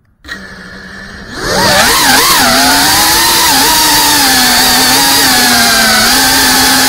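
FPV quadcopter's motors and propellers. A low steady hum starts about a quarter second in, then at about a second and a half the drone throttles up into a loud whine. The pitch wavers up and down for about a second, then holds fairly steady as it flies.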